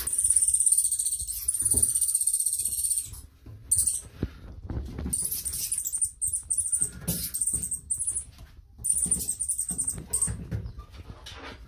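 Mole squeaking: a rapid, high-pitched chittering in long runs broken by brief pauses, with light knocks and scrabbling in the bathtub.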